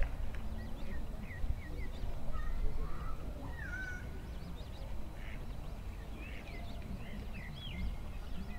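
Birds calling: scattered short, high chirps and whistles, some gliding up or down in pitch, over a steady low rumble. A brief loud burst comes at the very start.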